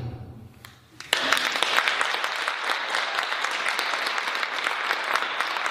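The final chord of piano and drums dies away, and about a second in an audience breaks into steady applause.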